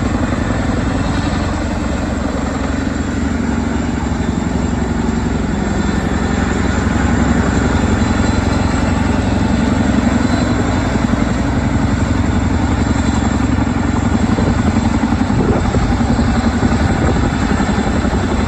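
Chinook tandem-rotor helicopter hovering low over water during a bucket water pickup, its two rotors beating with a loud, fast, even chop.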